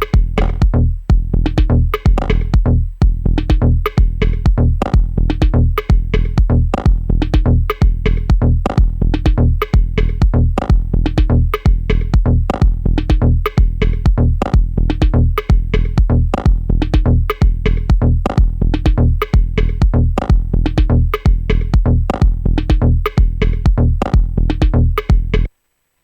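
Dub-techno groove playing from Native Instruments Maschine: a drum-machine loop with a steady kick about twice a second over a deep sustained bass and synth chords. It cuts off suddenly near the end as playback stops.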